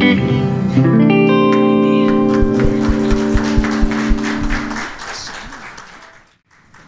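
A gospel band's electric and acoustic guitars end a song on a held final chord, with a quick run of low thuds beneath it. The chord stops about five seconds in and the sound rings out and fades away.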